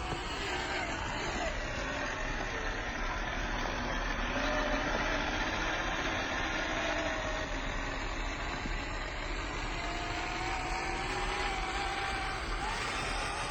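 Motor and drivetrain of a 1/10-scale RC pickup truck whining as it drives over rough ground, the pitch sliding up and down with the throttle over a steady rustle of tyres on the terrain.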